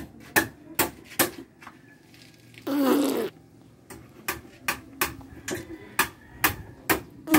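A run of sharp clicks at an uneven pace of about two a second, with a short breathy voice-like sound about three seconds in.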